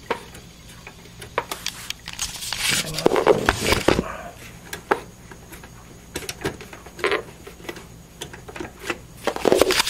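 Handling sounds of a SATA power cable being worked onto a hard drive inside a computer case: scattered plastic clicks, taps and rustles, busiest about three to four seconds in and again just before the end.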